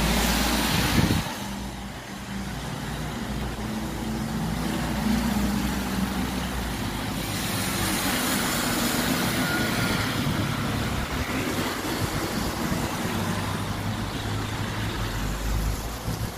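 Alexander Dennis Enviro200 MMC single-deck bus driving past, its diesel engine running steadily under a hiss of tyres on the wet road.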